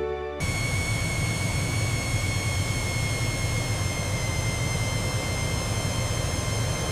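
Jet aircraft engine sound effect: a steady rumble with a high whine that falls slightly in pitch. It starts about half a second in, as music cuts off.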